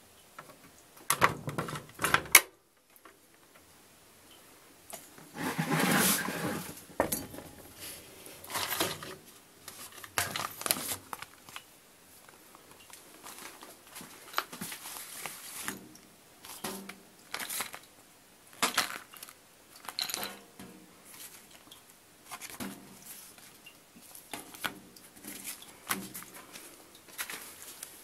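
Handling noises on a Wiatka 14 washing machine: irregular clicks and knocks, with a cluster of sharp clicks about a second in and a longer noisy burst around six seconds in.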